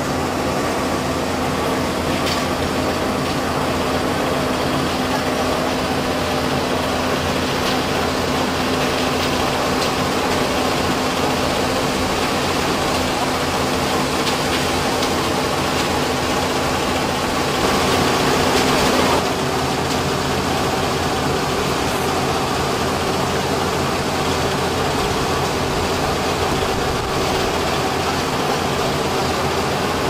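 Machinery of a sand-making plant running steadily: a continuous mechanical rumble with a steady hum. It grows briefly louder about eighteen seconds in.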